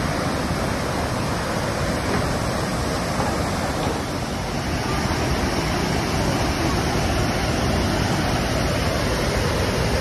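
Large river waterfall: a heavy flow of water pouring over wide rock ledges makes a steady, unbroken rush.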